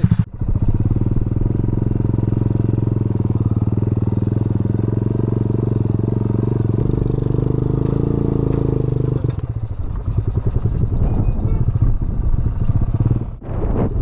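Small motorcycle engine running, heard from on the bike. The engine note is steady at first, and about two-thirds of the way through it turns rougher and more uneven.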